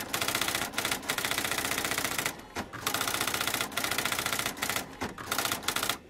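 Typewriter sound effect: a rapid, continuous clatter of keystrokes with a few brief breaks, stopping just before the end.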